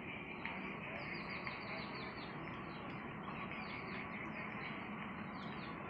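A small bird calling in quick runs of short, falling chirps, the longest run about a second in, over a steady background hiss.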